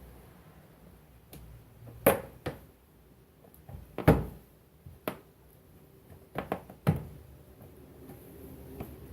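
About seven sharp knocks and clunks spread over several seconds, the loudest about four seconds in: hands and tools working at a car's fender liner while its fasteners are taken out.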